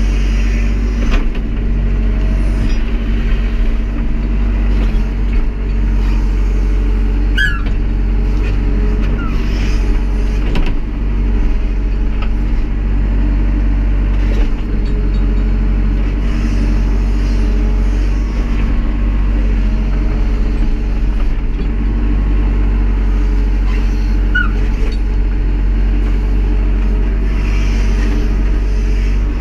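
Tractor backhoe's engine running steadily, with a few short knocks.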